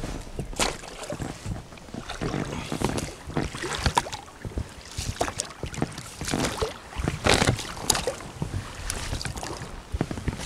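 Irregular rustling and crackling of reeds against a small boat, with scattered sharp clicks and knocks from the boat and gear as the hunter settles into a hide made of pressed-down, half-broken reed stalks.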